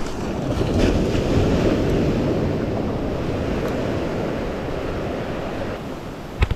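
Small waves washing through shallow surf, with wind on the microphone. Two sharp clicks close together near the end.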